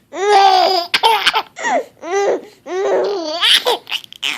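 Baby laughing in about six high-pitched bursts with short breaths between, a reaction to his mother's sneezing.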